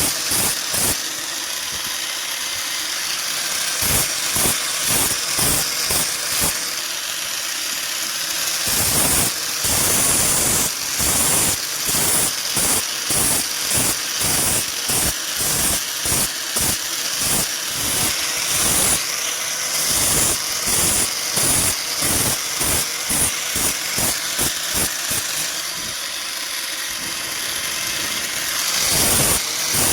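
Repeated knocks on metal, about two to three a second, over a steady hiss, in blacksmith metalwork.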